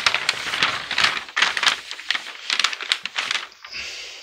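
Large Mylar drafting sheets rustling and crinkling as they are folded and handled: a run of irregular crackles that fades near the end.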